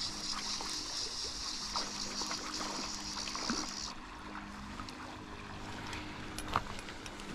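Creek water running, with a high hiss that cuts off suddenly about halfway through and a faint steady low hum beneath, and a few small clicks.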